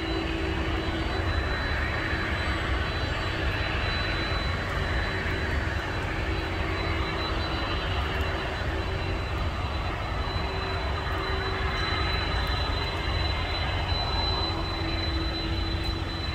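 Distant jet airliner engines running steadily while the aircraft taxis: an even rumble with a thin, steady high whine.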